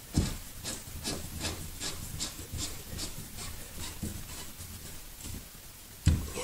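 Self-drilling drywall anchor being screwed into the wall with a hand Phillips screwdriver: its threads grind and rasp into the board in short strokes, about two to three a second. A dull thump at the start and another near the end.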